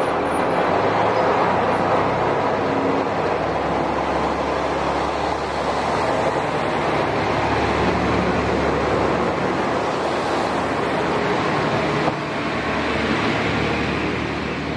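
Kashima Rinkai Railway diesel railcar passing close by, its engine and wheels on the rails making a steady running noise that begins to fade near the end as it pulls away.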